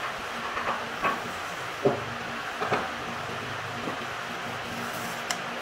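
Scattered light knocks and taps from a wooden trammel strip, pivoting on a nail, being swung and handled over a wooden board, the sharpest knock about two seconds in, over a steady low hum.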